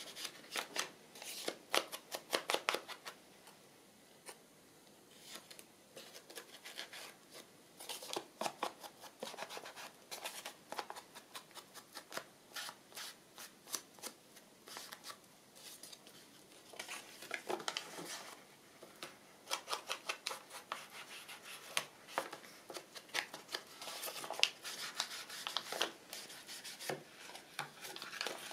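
Ink being rubbed along the edges of a paper craft piece: runs of quick, dry scratchy strokes with short pauses between.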